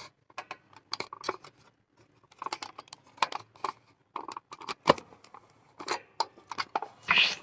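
Irregular clicks, taps and rustling of objects and craft materials being handled, with a louder, longer rustle near the end.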